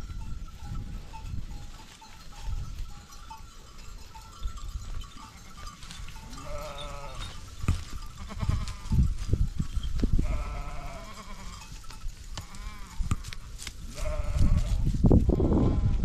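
Sheep and goats bleating in a grazing flock, several separate bleats a few seconds apart, over a low rumble that grows loudest near the end.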